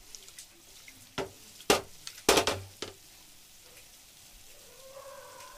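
Gulab jamun frying in ghee in a steel pan, with a faint, even sizzle. Four sharp metal knocks come between about one and three seconds in as the pan is swirled on the stove.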